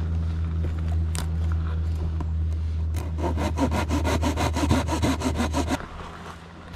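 Hand pruning saw cutting a dead, slightly damp tree branch in quick, even strokes from about three seconds in, stopping near the end. Under it runs a steady low engine-like hum that cuts off at the same moment as the sawing.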